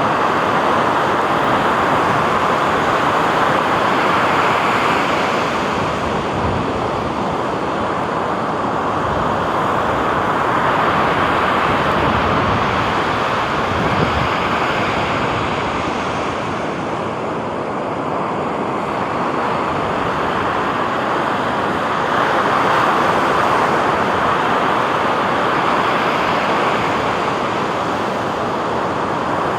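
Sea surf washing onto a beach, a steady rushing noise that swells and eases slowly as the waves come in.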